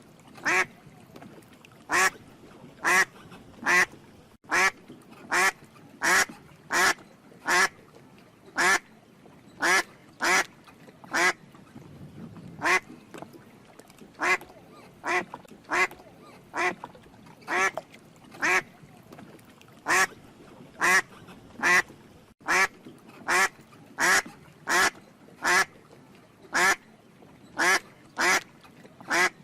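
Duck quacking over and over, about one short quack a second, sometimes two close together.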